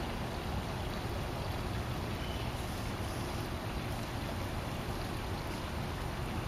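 Steady wind rushing and buffeting on the camera microphone, a constant noisy rumble heaviest in the low end, with no bird calls.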